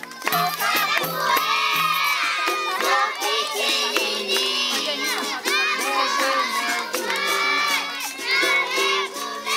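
A group of children shouting and singing a capoeira chant together, with a berimbau's steady low notes and the jingles of a pandeiro struck along with it.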